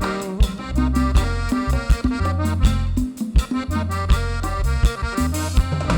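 Cumbia band playing an instrumental break: a lead melody line over a steady bass and regular drum hits, with no singing.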